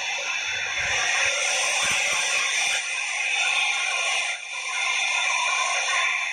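Background music: a steady, dense wash of sound with no clear beat.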